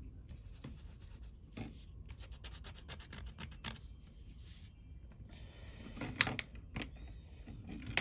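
A purple colouring stick rubbing back and forth on paper in quick scratchy strokes, busiest from about two seconds in, stopping near the middle. A few sharp clicks follow, the loudest about six seconds in.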